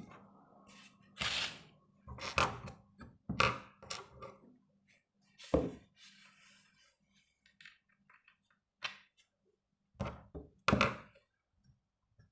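Irregular knocks and thunks, about seven spread over the stretch, as a screw and tools are handled against a wooden broomstick while the screw is set into a hole packed with matchstick pieces.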